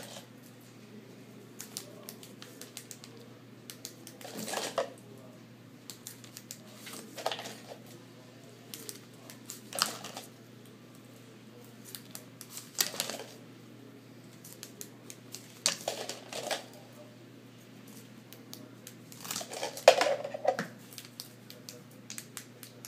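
Small metal keychain flashlights clattering against a plastic jar and each other as they are taken out and set on a desk, in short bursts every two to three seconds with scattered clicks; the loudest burst comes just before the end.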